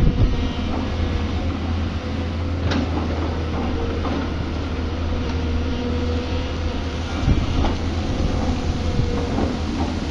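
Excavator's diesel engine running steadily under a low drone, with a steady whine over it and a few short knocks.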